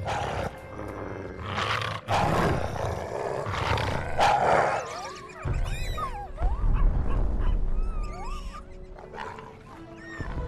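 Wolves snarling and growling in several harsh bursts over film music; about halfway through come a deep rumble and high, gliding whimpering cries.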